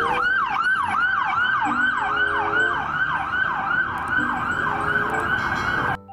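Police-car siren wailing in fast repeated sweeps, about three a second, each rising sharply and then falling back. It cuts off suddenly near the end.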